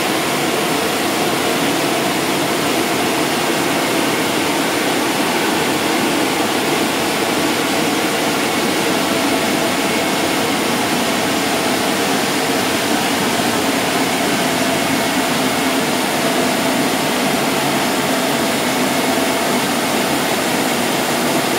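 Automatic car wash machine running, a steady rushing noise of its water spray and motors as its gantry with rotating brushes moves along the car.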